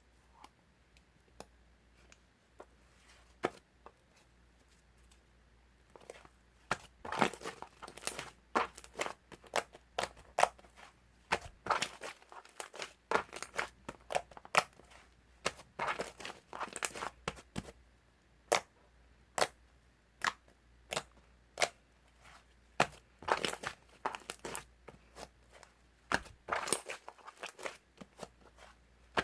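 Homemade slime being squished and pressed by hand, its trapped air bubbles popping in sharp, irregular crackles. After a few seconds of near quiet with only scattered clicks, the popping starts up and runs thick, with two brief lulls.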